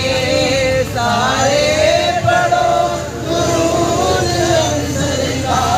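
Male voices chanting a devotional chant, with long held notes that slide in pitch.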